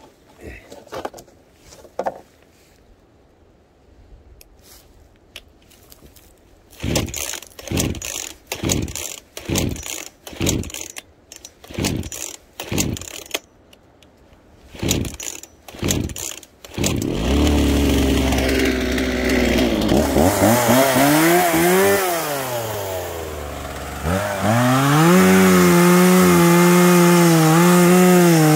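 Two-stroke chainsaw being pull-started: about a dozen quick cord pulls, then the engine catches a little past halfway. It idles and revs up and down, then runs at a steady high speed near the end.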